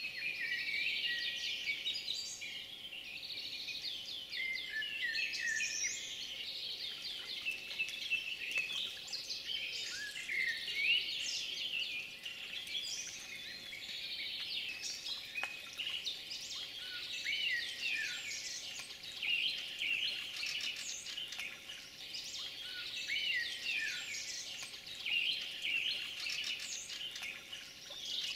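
Chorus of many small songbirds chirping and singing at once, with quick high notes and short trills overlapping throughout.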